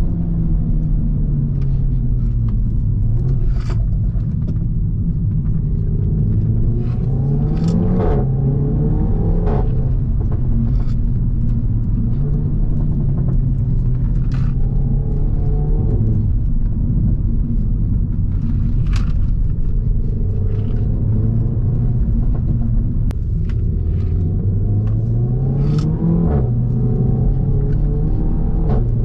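Renault Mégane 4 RS's catless 1.8 L turbo four-cylinder running under way, mostly at a steady note, twice revving up under acceleration and dropping sharply at a gear change. Short sharp pops and cracks come at irregular intervals, some right at the shifts.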